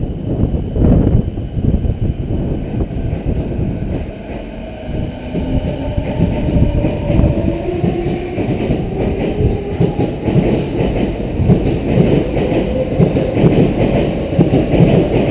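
Odakyu 4000 series electric train pulling away from the platform. The inverter-driven traction motors whine, rising steadily in pitch as it gathers speed, over the rumble of the wheels on the rails.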